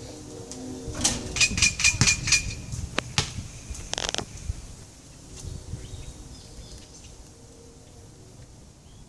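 A basketball shot hitting the hoop, setting off a quick rattle of the rim and backboard, then the ball bouncing a few times on the concrete driveway.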